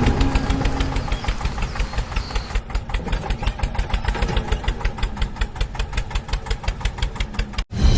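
Diesel engine of heavy construction machinery running with a fast, even chugging knock, several beats a second. The sound cuts off abruptly near the end.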